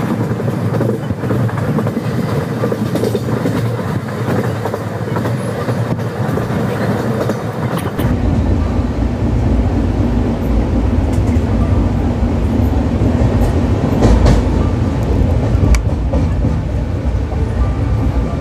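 Gondwana Express passenger train running on the rails: a steady rumble and clatter of wheels on track. About eight seconds in the sound changes abruptly to a deeper, heavier rumble with less hiss, with a few sharp clacks later on.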